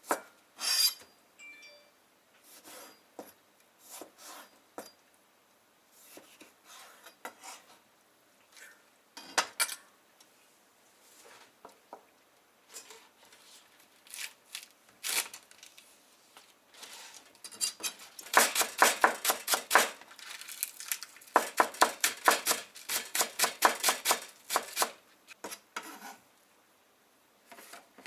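Kitchen utensils knocking and clinking against dishes, with scattered single knocks and then a run of quick, evenly spaced strikes lasting several seconds toward the end.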